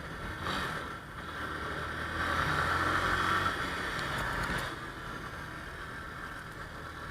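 Motorcycle riding in city traffic: a steady rush of wind noise with a low engine hum beneath it, swelling a little between about two and four seconds in.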